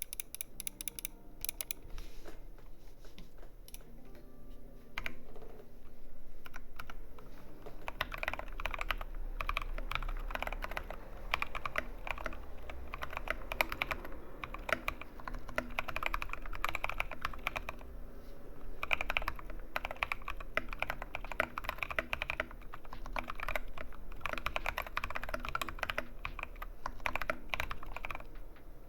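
Kemove Snowfox DK61 mechanical keyboard with lubed and filmed Durock Koala tactile switches being typed on. A few scattered keystrokes at first, then from about six seconds in a continuous run of fast typing.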